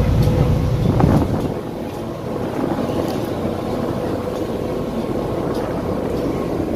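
Car ferry under way: a steady low rumble from its engines, with wind blowing across the microphone.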